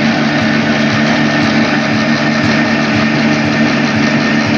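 Stationary diesel engine with a large flywheel running steadily, driving a belt-driven flour mill, with a low beat under a steady mechanical din.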